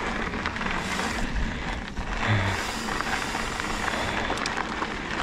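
Mountain bike rolling over a rocky dirt trail: the tyres crunch and the bike rattles, with a steady rush of wind noise and a few sharp clicks near the end.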